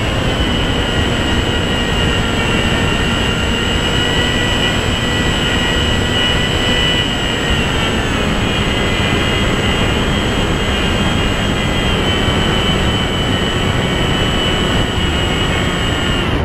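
Electric motor and propeller of an FPV flying wing, heard from the aircraft's onboard camera: a steady high whine with small pitch shifts as the throttle changes, over heavy wind rush from flying fast and low.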